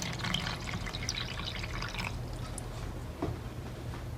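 Water dripping and splashing in a sink or bowl, as dried citrus peel is put to soak to soften it. The dripping is busiest in the first two seconds, with a single small knock about three seconds in, over a low steady hum.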